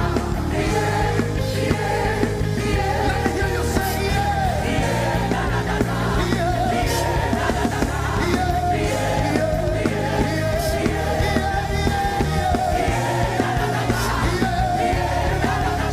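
Live worship music: a voice singing sustained, wavering melody lines over a steady band accompaniment with bass and cymbals.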